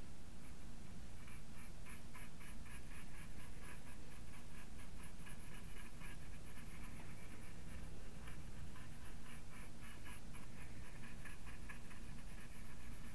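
Small artist's brush dabbing acrylic paint onto hardboard in quick short strokes: a rapid, uneven run of faint scratchy ticks that starts about a second in and stops near the end.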